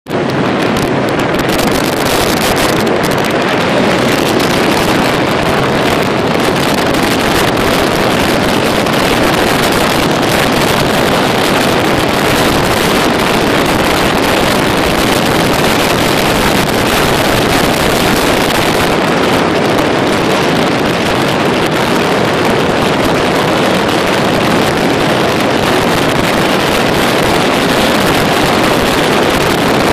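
Motorcycle riding at motorway speed: a loud, steady rush of wind over the microphone with the engine and tyre noise blended into it.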